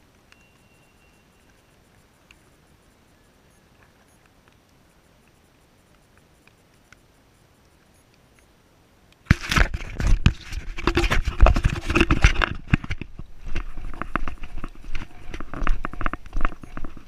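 Quiet at first with a few faint ticks. About nine seconds in, loud, irregular rustling and thudding starts suddenly: running footsteps through grass and handling noise from a hand-held GoPro being jostled.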